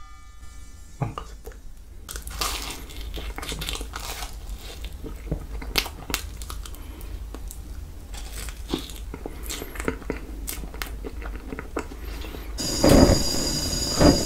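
Close-miked biting and chewing of toasted marshmallows from a skewer: irregular small crackles and crunches. About a second before the end, a portable gas stove burner comes on with a steady hiss.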